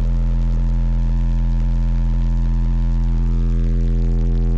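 A car audio system's subwoofers playing one loud, sustained low bass tone for a sound-pressure (SPL) competition run. It stays at a steady pitch and level throughout.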